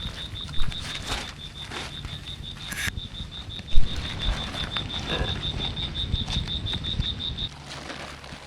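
A calling animal's high-pitched pulsed chirp, about six or seven pulses a second, repeating steadily and cutting off suddenly near the end. Under it runs a low rumbling noise, and there is one sharp knock about four seconds in.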